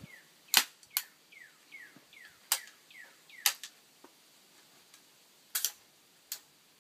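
Sharp metallic clicks and clacks, about seven, spaced irregularly with a quick double click late on, from the Black Rain Fallout 15 AR-15 rifle being handled. Faint short falling chirps come between the clicks.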